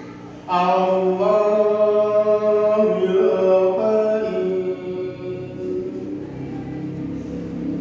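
A man chanting the adhan, the Islamic call to prayer, into a microphone: long held notes that bend and slide in pitch, taken up again after a short breath in the first half second.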